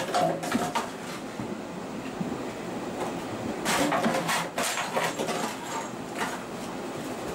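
Kittens batting their plastic toys around on a hard floor: clicks and a rolling rattle from a ball-track tower toy and an empty plastic bottle, in short bursts at the start, about four seconds in and again near six seconds.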